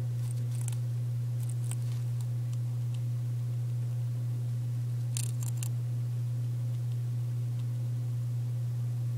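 Dwarf hamster nibbling a Goldfish cracker: short, crisp crunches, a few in the first two seconds and a quick cluster about five seconds in. A steady low hum runs throughout and is louder than the crunching.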